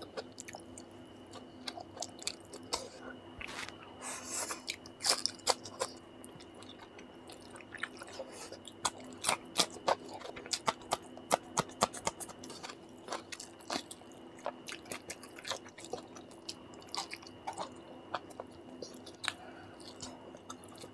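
Close-miked mouth sounds of a man eating curry and rice with his hand: wet chewing and lip smacking, with many short sharp clicks and squishes. A faint steady high whine and a low hum run underneath.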